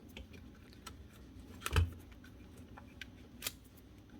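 Scattered light clicks and small knocks of grass and debris being picked out of a cordless strimmer's opened motor housing, with one louder knock about two seconds in. The debris is jamming the motor and stopping it from turning.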